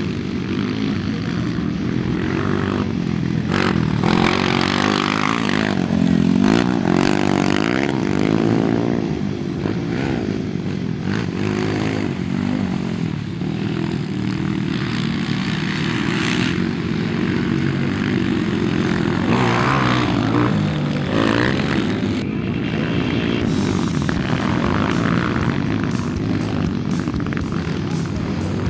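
Motocross dirt bike engines revving up and down as riders race around the track, the pitch rising and falling with throttle and gear changes.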